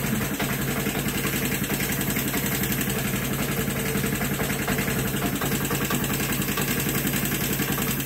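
Vespa scooter's single-cylinder engine idling steadily, with an even, rapid low pulse.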